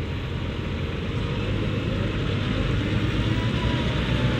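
Diesel engines of large farm tractors running hard under load in deep mud, a steady low rumble that grows slowly louder.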